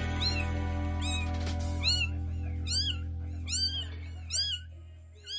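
Young kitten mewing over and over, thin high mews that each rise and fall, about two a second. Background music with a held low note runs underneath and fades out near the end.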